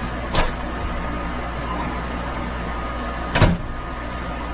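Two short sharp clicks about three seconds apart, the second louder, over a steady low hum.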